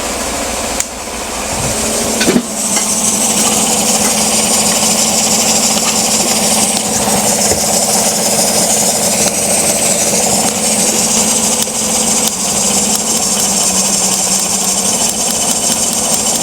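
Chevrolet Silverado 5.3 V8 idling with a steady, rough rattle, heard close to the engine bay, with a couple of knocks in the first few seconds. The engine has an active misfire.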